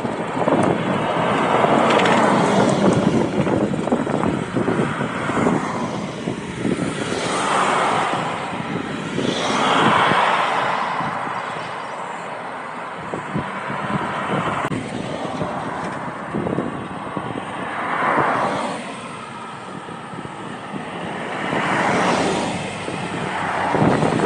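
Honda Rebel motorcycle being ridden on the road, heard through wind rushing over the camera's microphone. The noise swells and fades every few seconds.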